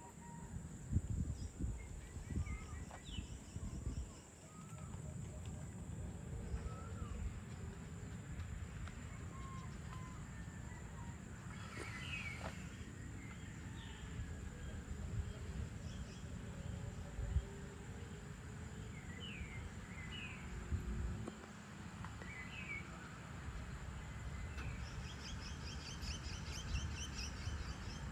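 Evening outdoor ambience: scattered short bird chirps over a steady low rumble, with a fast pulsing insect trill joining near the end.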